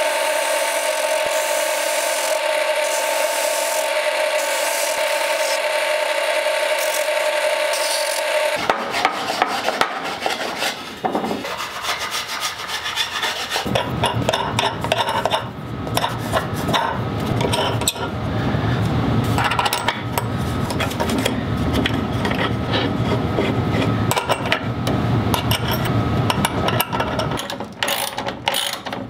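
A spinning sanding drum hums steadily while it sands the edge of a plywood disc. About nine seconds in this gives way to irregular clicks, knocks and rubbing as wooden beams and metal nuts and bolts are handled and fitted together.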